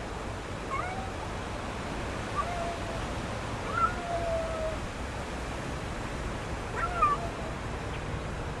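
Kitten mewing several times: short, thin cries about a second in, around two and a half seconds, a longer louder one near four seconds and another near seven seconds, over a steady low background rumble.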